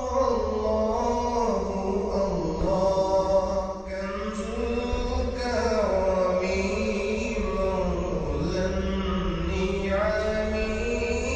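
A solo voice chanting in long, drawn-out lines that slide and ornament between notes, pausing briefly about four seconds in and again near eight seconds, over a steady low hum.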